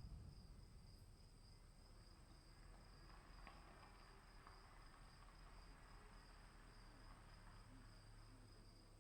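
Crickets chirping in a faint, steady, high-pitched chorus that doesn't let up.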